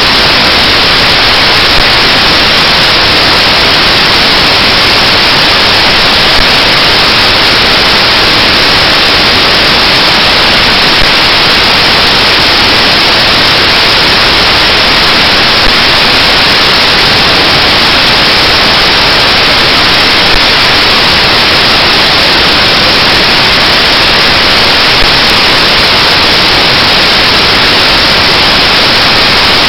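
Loud, steady static hiss with no change in level, broken only by a faint click about every four and a half seconds.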